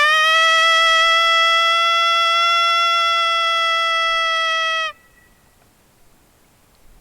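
A long coyote howl blown or played on a predator call: one held, steady note with a slight waver at first, cutting off sharply about five seconds in.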